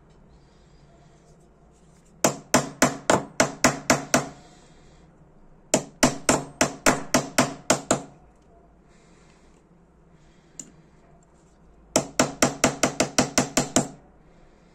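Small hammer tapping a thin metal pin punch into a Dunhill Rollagas lighter body, driving out a pin to open it: three quick runs of about ten sharp metallic taps each, some four or five a second, with short pauses between them.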